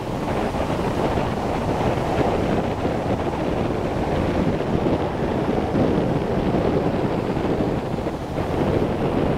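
Wind rushing across the microphone over the steady wash of ocean surf breaking and running up the beach.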